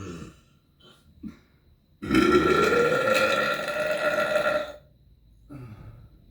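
A person burping deliberately: one long, loud burp about two seconds in, lasting nearly three seconds, its pitch rising at first and then holding. A couple of brief, much quieter sounds come before it and one shortly after.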